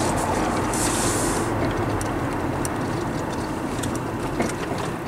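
Steady road and engine noise inside a moving car, with a brief high hiss about a second in.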